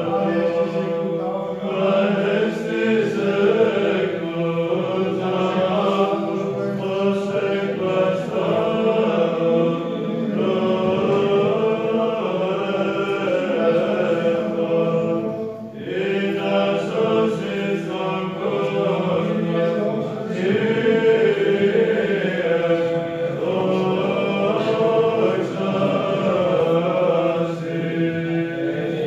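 Byzantine psalmody sung by a choir of male voices: a steady low drone held underneath while the melody moves above it, with a short pause between phrases partway through.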